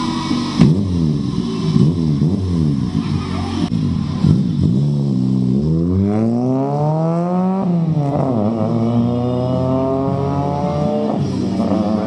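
1993 Toyota Corolla's four-cylinder engine through an aftermarket full exhaust: quick repeated revs while standing, then the car pulls away. The exhaust note rises through one gear, drops at a shift about halfway through, rises again through the next gear, and falls off near the end.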